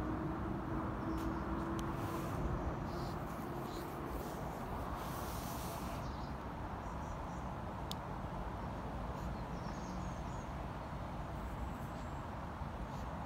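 Steady outdoor background noise, with a brief rustling hiss about five seconds in and a few faint high chirps near the end.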